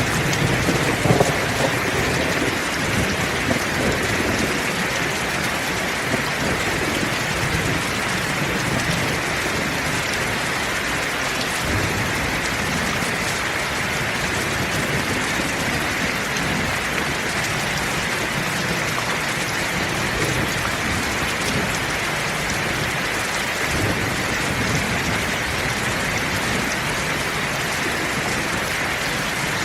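Heavy rain falling steadily, with a low rumble of thunder dying away in the first second or two.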